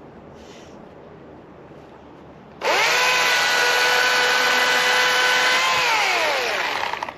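Two-stroke chainsaw revved to full throttle: it starts abruptly about two and a half seconds in, rises to a steady high whine held for about three seconds, then is released and its pitch falls away as it winds down.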